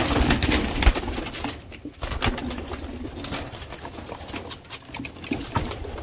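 Domestic pigeons cooing in a loft, with scattered short clicks and knocks; louder in the first second and a half.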